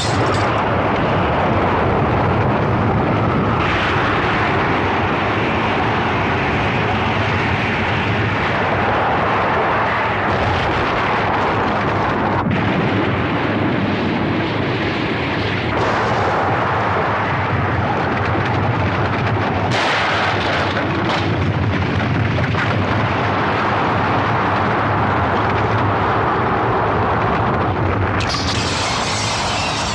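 Film sound effect of an atomic bomb blast: a long, continuous, loud rumble of the explosion and its shock wave. A bright, high hissing rush comes in near the end.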